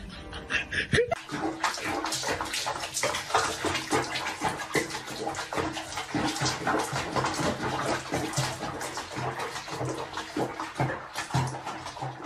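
Bath water splashing and sloshing in a tub around a cat sitting in it: a dense, irregular run of splashes that starts about a second in.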